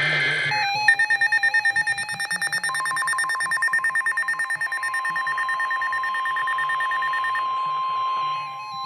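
Emergency Alert System signal. First the last moment of the screechy digital header burst, then a steady electronic attention tone made of several tones at once that pulses in loudness at first. About three seconds in a second, steady single tone joins it and runs on.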